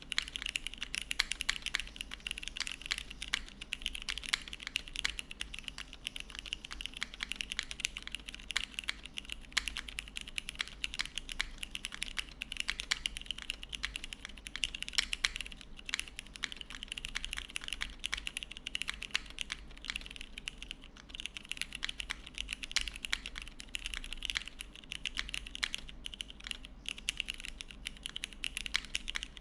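Continuous fast typing on a gasket-mounted mechanical keyboard with lubed, broken-in Cherry MX Brown tactile switches on a polypropylene plate and GMK keycaps: a steady stream of soft clacks.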